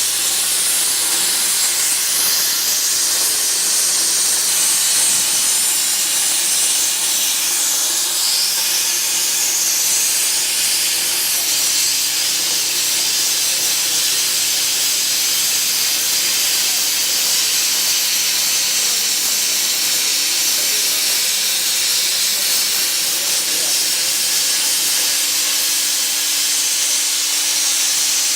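Plasma cutting torch on a CNC pipe cutting machine, hissing steadily as it cuts, with a faint steady hum underneath.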